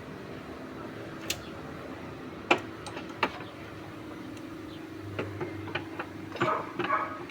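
Scattered sharp clicks and light taps, a few at first and then a quick cluster near the end, over a steady low hum.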